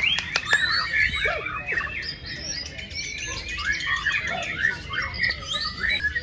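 Many caged white-rumped shamas (murai batu) singing and calling over one another: a dense chorus of overlapping whistles, trills and chirps, with a few sharp clicks in the first second.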